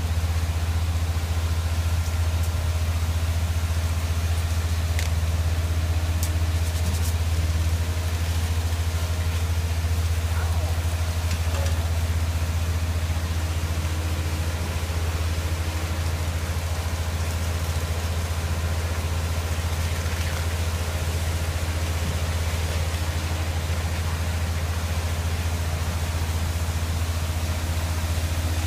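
An engine idling with a steady low drone that does not change.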